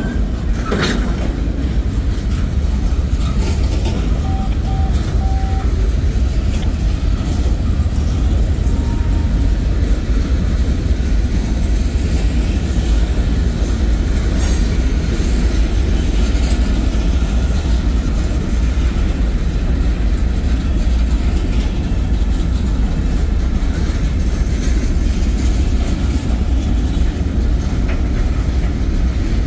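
Norfolk Southern 191 manifest freight train's cars, boxcars and gondolas, rolling past: a steady rumble of steel wheels on rail, with a few clicks.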